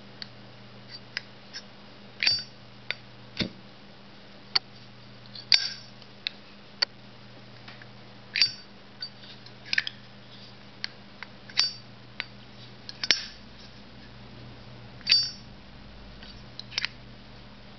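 Zippo 362 Black Crackle lighter's hinged metal lid being flicked open and snapped shut: a string of sharp metallic clicks at irregular intervals, some with a brief ring.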